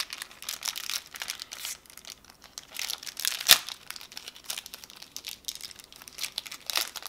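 Clear plastic card sleeves and their packaging crinkling and rustling in the hands, with one sharp, louder crackle about three and a half seconds in.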